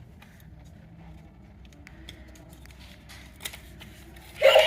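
Faint clicks and knocks of a plastic battery-operated toy dog being handled while it is stuck. Near the end a loud electronic toy tune starts suddenly.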